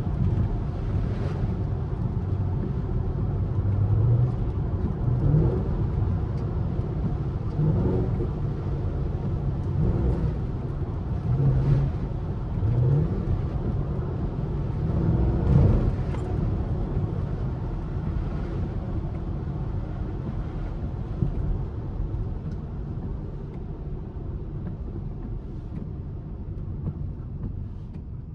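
A 5th-generation Camaro SS's 6.2-litre V8 on its stock exhaust, heard from inside the car while driving. The engine note climbs briefly several times in the first half, loudest about sixteen seconds in, then settles into a steadier run that slowly gets quieter.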